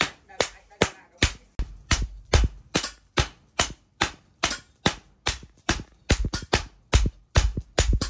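Hammer blows forging a red-hot steel cleaver blade on a steel post anvil, a steady ringing rhythm of about two to three strikes a second that gets faster and less even after about six seconds.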